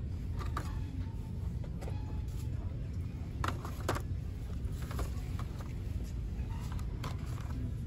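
Steady low rumble with a handful of scattered light clicks and knocks.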